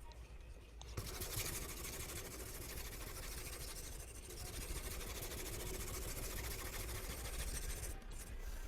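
Knife blade being ground against a diamond sharpening stone: a steady grinding hiss that starts about a second in and stops shortly before the end.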